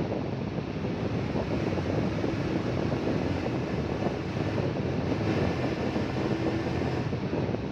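Rainstorm: a steady, dense rush of heavy rain and wind.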